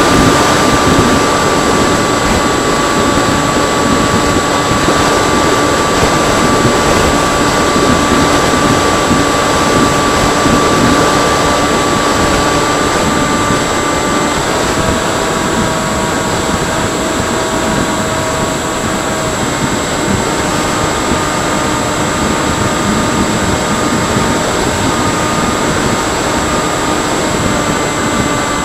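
Electric motor of a Freewing Seagull RC model plane whining steadily under a loud rush of air. The whine drops in pitch about halfway through as the throttle changes.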